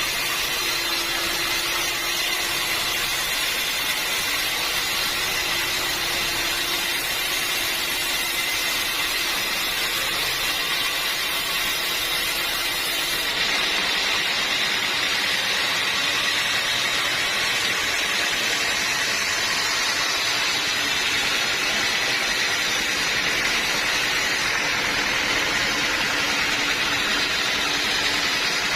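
Sawmill saw running steadily through a log of hard acacia wood, a continuous mechanical noise with a high steady whine over it.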